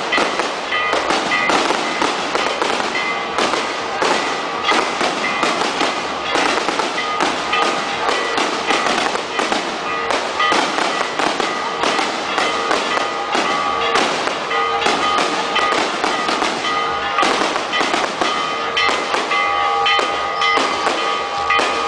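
Long, unbroken run of rapid firecracker bangs and crackling, with sustained tones of music underneath.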